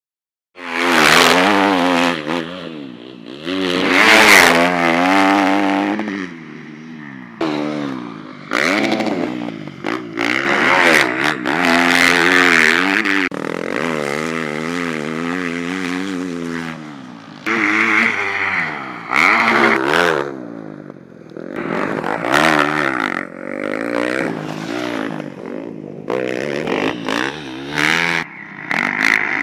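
Motocross dirt bike engine revving up and easing off again and again, its pitch rising and falling as it accelerates and shifts, with rough, noisy stretches in between. It starts about half a second in.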